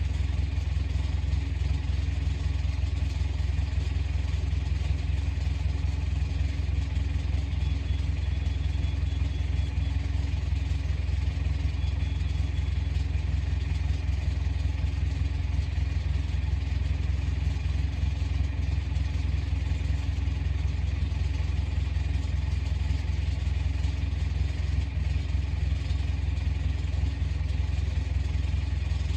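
Komatsu bulldozer's diesel engine running steadily, a deep, even note that holds without change.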